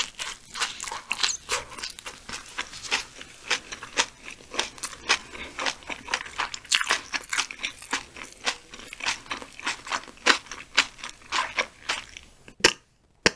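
Close-miked mouth sounds of someone chewing a mouthful of bread roll: a dense run of short wet clicks and crunches, a few a second. They stop for a moment near the end.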